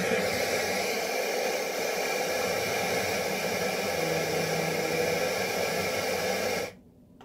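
FM radio static hissing from a Tenmiya A20 portable Bluetooth speaker while it is tuned between stations; the hiss cuts off abruptly near the end.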